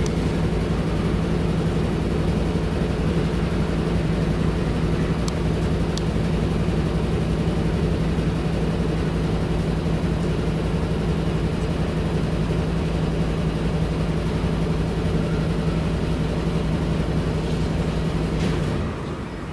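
A steady, loud machine hum at one constant low pitch that cuts off suddenly near the end.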